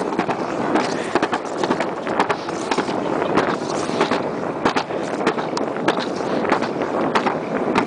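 Alpine slide sled running down its track at speed: a continuous rough rumble with frequent clicks and rattles.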